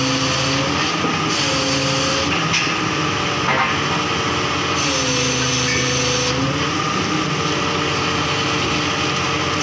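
Truck-mounted borewell drilling rig running loudly, a steady dense machine noise with a hiss. A pitched whine within it dips and recovers several times while the rig's hydraulic levers are worked.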